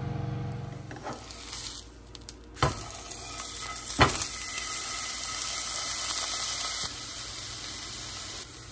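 Low steady hum of a Fotile ChefCubii steam oven air frying for about the first second, then a plant-based burger patty sizzling in a nonstick frying pan on the stove. Two sharp taps of a spatula against the pan come a couple of seconds in.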